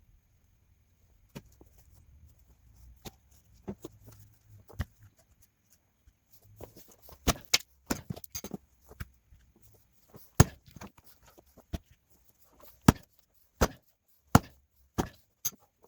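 Firewood being chopped and split by hand: a run of sharp chopping strikes into the wood. The strikes are light and sparse at first, come in a quick flurry midway, then become single hard blows about a second apart.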